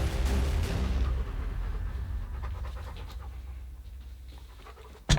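Background music fades out over the first second or so, leaving a dog panting rapidly. A single sharp snap sounds just before the end.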